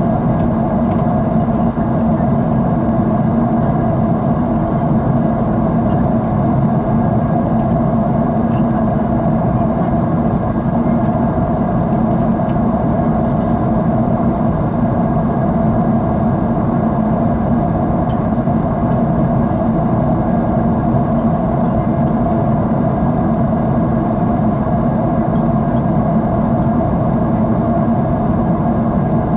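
Jet airliner engine noise heard inside the passenger cabin: a loud, steady drone and rush of air with a constant low hum.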